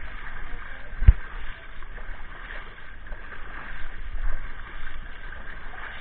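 River water splashing and sloshing as people throw water over a bathing elephant, with one sharp thump about a second in.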